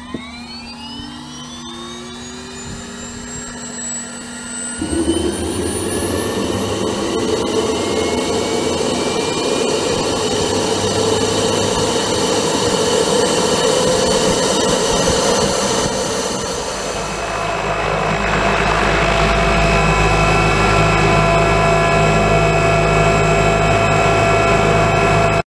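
Helicopter engine and rotor spinning up, heard from inside the cockpit: a whine that rises steadily in pitch, growing louder about five seconds in. From about seventeen seconds in it settles into a louder, steady engine and rotor sound with a deeper rumble as the helicopter takes off.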